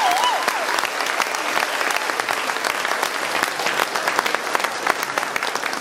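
A theatre audience applauding after a dance performance, a dense steady clapping. A wavering held note trails off in the first half second.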